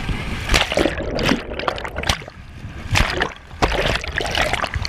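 River rapid crashing and splashing over the side of an inflatable raft, in irregular surges, with water washing right over the camera near the end.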